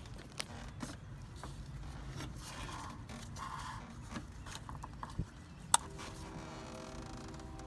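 Plastic wiring-harness clips and wires being worked loose by hand in an engine bay: scattered small clicks and scrapes, with one sharp click near the end. Under them is a steady low rumble, and near the end a faint steady hum of several tones joins in.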